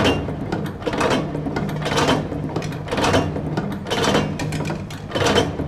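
Stainless steel manual single-punch tablet press, the MKS-TBL11, being turned by hand. Its gears and punch mechanism clack about once a second as it presses tablets from powder.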